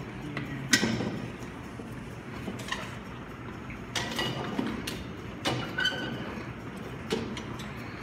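Reverse hyperextension machine being worked: its plate-loaded pendulum swings and clanks, five metallic knocks with a short ring, roughly every one and a half seconds.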